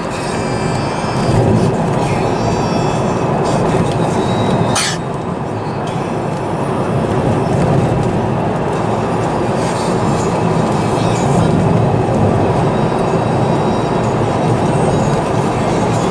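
Steady road and engine noise of a moving car heard from inside the cabin, tyres running on the road surface, with one short sharp knock about five seconds in.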